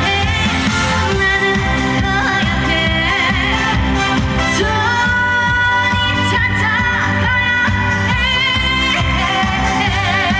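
Korean trot song performed live: a woman singing with vibrato over instrumental backing with a steady bass beat.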